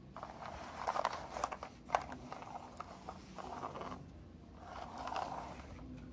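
A toy truck and trailer pushed by hand over a carpet: its wheels roll and its body scrapes over the pile in uneven bursts, with a sharp click about two seconds in.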